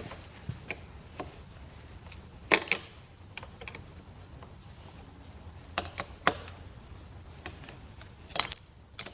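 Metal hand tools clicking and clinking: a handful of sharp, separate metallic clicks at uneven intervals as sockets and wrenches are handled while hunting for the right size to take off the battery terminal bolts.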